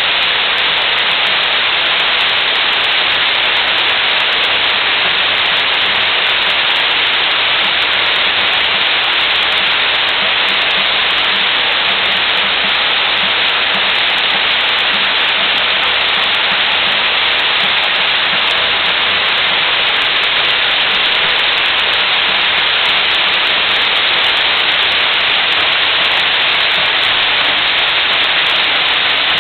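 Heavy rain falling steadily, an even hiss that doesn't let up.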